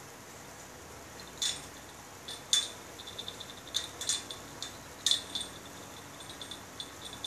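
Small bell on a cat's collar jingling in irregular bursts as the cat rolls and paws, mixed with light clinks against a wire cage. Several louder jingles stand out, the rest are faint tinkles.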